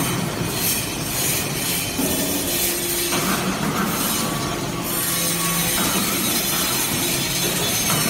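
Hydraulic metal-chip briquetting press running: steady, loud machine noise from its hydraulic power unit, with held hums that change pitch every second or two.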